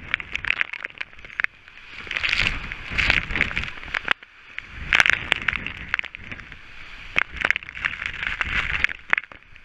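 Storm-force wind gusting, with rain driving against the microphone: a noisy rush that swells and ebbs in gusts, loudest about five seconds in, with many sharp taps of raindrops striking the camera.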